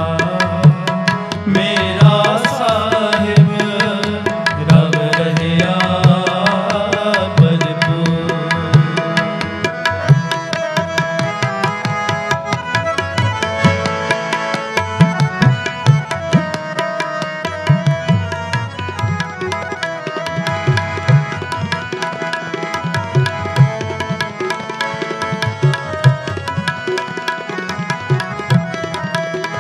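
Tabla playing a steady, busy rhythm under sustained harmonium chords, the instrumental accompaniment of Sikh kirtan between sung lines.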